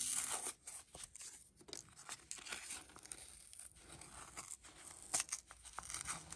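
Paper tabs being peeled and torn off a new cotton round oil-lamp wick by hand: faint, irregular paper rustling and small tearing crackles.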